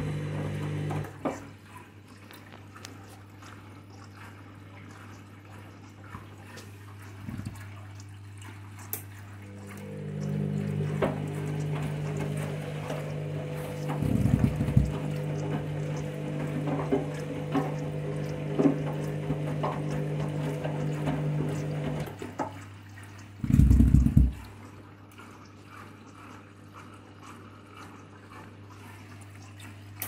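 Front-loading washing machine on its final rinse: water swishing in the drum, louder for about twelve seconds in the middle, over a steady low hum. Two heavy low thuds, one partway through and one just after the swishing stops.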